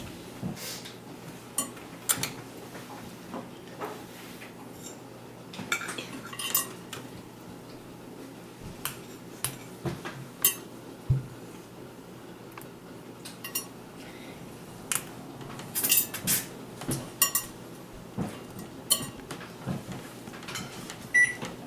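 Scattered light clinks and taps of metal staples being handled and set out on a plate, with small knocks of the plate itself.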